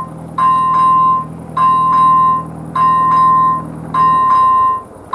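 First-generation electronic crossing bell on an AŽD 97 level-crossing warning signal, ringing in a repeating double-strike chime about once every 1.2 s: the crossing is activated and warning of an approaching train. A low hum underneath stops about four seconds in.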